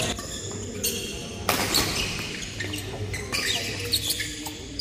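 Badminton rally: sharp racket strikes on the shuttlecock about every second and a half, with short shoe squeaks on the court floor between them, echoing in a large hall.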